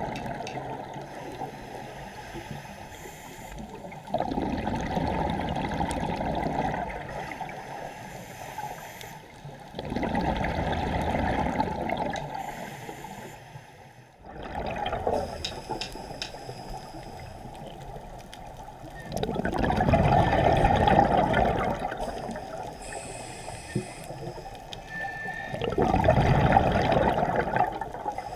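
A scuba diver breathing through a regulator underwater: a gurgling rush of exhaled bubbles swells up every five or six seconds, with quieter stretches between breaths.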